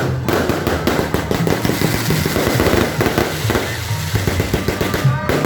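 Fireworks crackling: a dense, rapid string of small sharp bangs, with music playing underneath.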